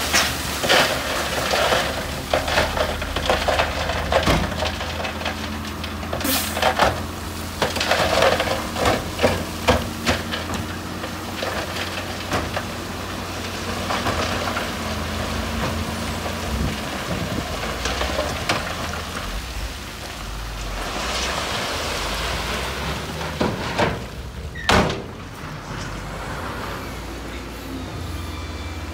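Heavy earthmoving machine's diesel engine running with a steady low drone, under repeated sharp clanks and knocks of metal and rock, thickest in the first ten seconds, with one loud knock near the end.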